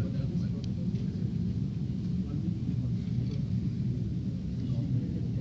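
Steady low rumbling background noise with a few faint, short clicks.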